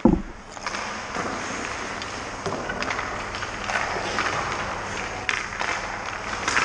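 Ice skate blades scraping and hissing on rink ice, with a thump at the start and a few sharp knocks scattered through.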